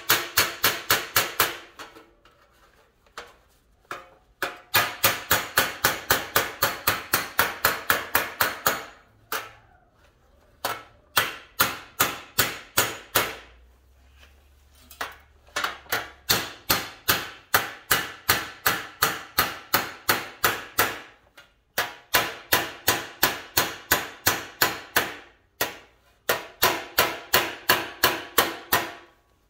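Body hammer striking a sheet-steel cowl side panel in runs of quick metallic taps, about five a second, with short pauses between runs. This is hammer work to raise a low spot and bring crown back into the panel around the welded-in cowl vent.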